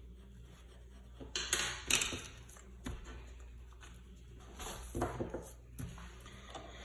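A sheet of drawing paper rustling and sliding across a tabletop in a few short shoves, with a sharp click about three seconds in, like a pencil being laid down on the table.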